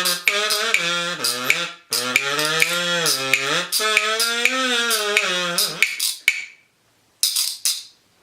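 A wordless tune hummed in a buzzy tone, long held notes bending up and down in pitch, with sharp clicks tapped along; the tune stops about six seconds in and a few more clicks follow.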